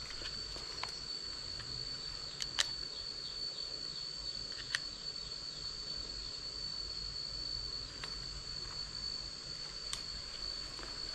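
Steady high-pitched insect trill, like a cricket's, with a few sharp clicks from handling the cable and tester.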